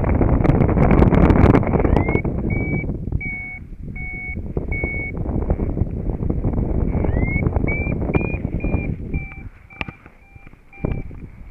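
Paragliding variometer beeping a run of short, high, evenly spaced tones, each sliding up at its start: its climb signal. Wind buffets the microphone loudly over the first couple of seconds.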